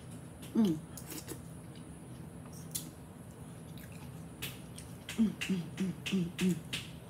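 Close-up eating sounds of boiled shrimp and crawfish: wet chewing, lip smacks and sharp clicks. A short hummed 'mm' comes near the start, and a quick run of five hummed 'mm's about five seconds in.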